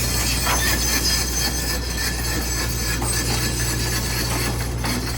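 Backhoe working: a steady diesel engine drone with high metallic squealing and scraping from the machine as it moves rocks.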